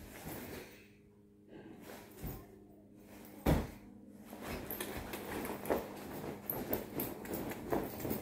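Faint room sound with a steady low hum and a single sharp knock about three and a half seconds in. After that comes a continuous run of soft rustling and light ticks as a person moves around in a jacket and scarf.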